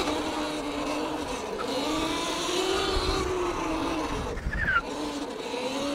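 Electric motocross bike's motor whining while being ridden, its pitch rising and falling with the throttle, over a low rumble of tyres and wind.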